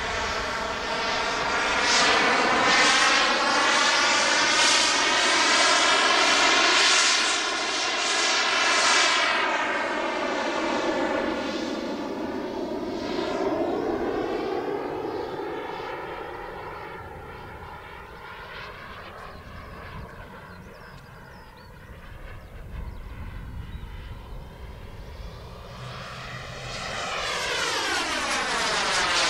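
Model gas-turbine engine of a thrust-vectored RC jet running in flight, a whine whose pitch rises and falls as the jet moves about. It fades away in the middle, then comes back loud near the end and drops sharply in pitch as the jet passes close by.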